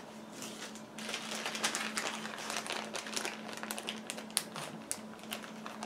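Small clear plastic parts bags crinkling and rustling as they are handled, a run of many quick, sharp crackles that starts about a second in.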